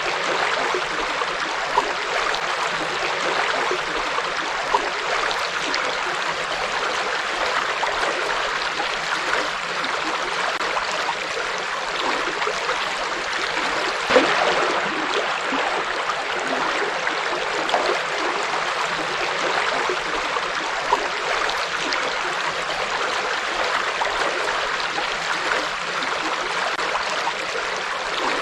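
Forest river flowing steadily over rocks: an even rush of water with small splashes and gurgles, one slightly louder splash about halfway through.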